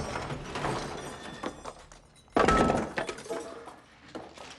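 A sudden loud crash about halfway through, like something hitting hard and breaking, dying away over about half a second, after a fading clatter at the start.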